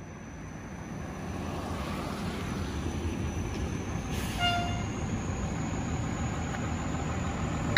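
Fire engine's diesel engine running and building up, growing steadily louder, with one short horn toot about four seconds in.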